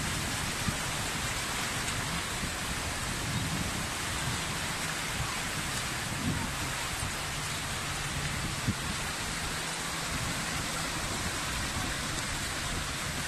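Small waves breaking and washing up a sandy shore: a steady hiss of surf.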